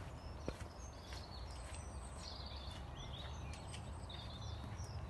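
Outdoor ambience: small birds chirping and warbling over a low steady rumble, with one sharp click about half a second in.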